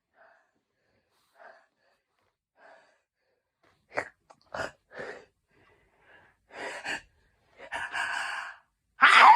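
A person's hay fever sneezing fit: a few faint sniffs, then from about four seconds in a series of sharp gasps and sneezes that grow louder, the loudest sneeze near the end.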